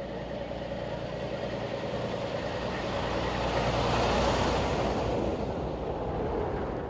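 A motor vehicle drives past: engine and road noise build up, peak about four seconds in, then fade away.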